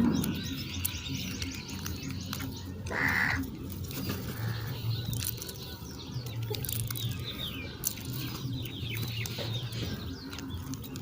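Birds calling: quick high chirps run throughout, with one harsh, caw-like call about three seconds in and a fainter one soon after.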